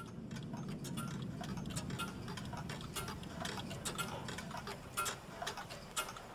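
Many clocks ticking at once, out of step with each other, over a steady low hum.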